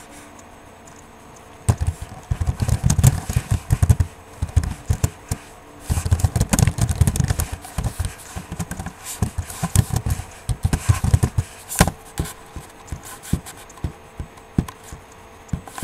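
Handling noise close to the microphone: irregular clicks, taps and scraping with dull thumps. It starts about two seconds in, is heaviest in two stretches, and thins to scattered taps near the end.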